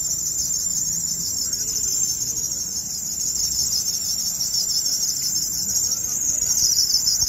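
Crickets trilling in a dense, steady, high-pitched chorus, a little louder near the end.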